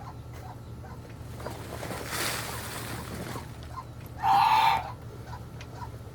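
Backyard poultry: a rushing hiss-like noise around two seconds in, then one loud, harsh squawk lasting about half a second a little after four seconds in, over a low steady hum.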